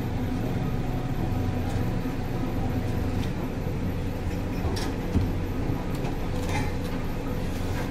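Steady low hum of an idling vehicle engine, with a few light knocks and a sharper thump about five seconds in as rolls of laminate sheet are slid onto a wooden cargo floor.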